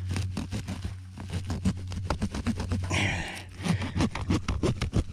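A tree root being cut with a hand tool while digging in soil: rapid repeated scraping and chopping strokes.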